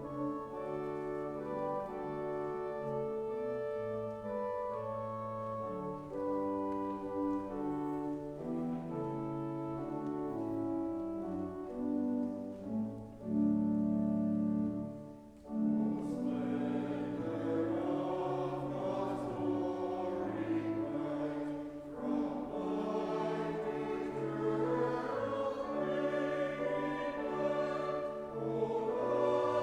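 Church organ playing a hymn introduction in sustained chords. About sixteen seconds in, after a short break, the congregation starts singing the hymn with the organ accompanying.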